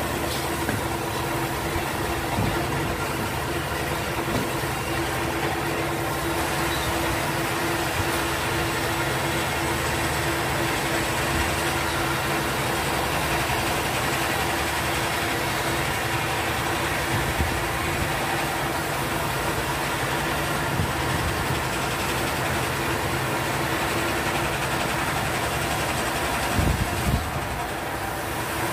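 Steady machine hum with a constant pitch over a low rumble, like a motor running. There are a few faint knocks, and a short cluster of them near the end.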